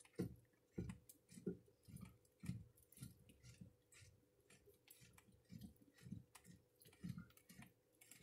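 Plastic filter sump of a GE GXWH40L whole-house water filter being unscrewed by hand from its cap: faint, repeated low creaks and knocks as the housing is turned on its threads, about one or two strokes a second.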